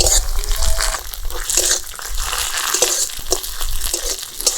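Chopped onions and ginger-garlic paste frying in oil in a kadai, sizzling, with a spatula stirring and scraping against the pan in a run of short strokes.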